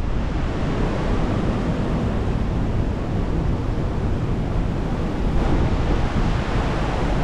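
Ocean surf washing steadily below, with wind buffeting the microphone in a low, uneven rumble.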